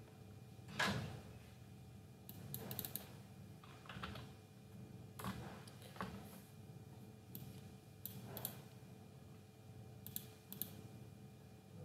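Computer keyboard keys tapped faintly in short, irregular clusters every second or two while code is being edited.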